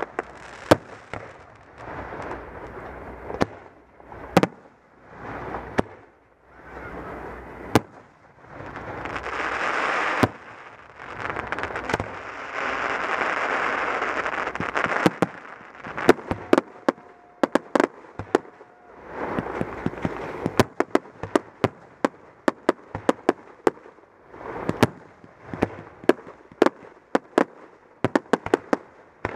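Aerial fireworks display: shells bursting in sharp bangs, with longer rushing swells of noise in between. The bangs come thick and fast over the last third.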